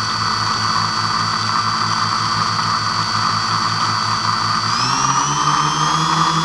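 Twin-motor RC airplane's motors and propellers running at low throttle: a steady high whine over a regular pulsing throb. About five seconds in, the pitch rises as the throttle is opened.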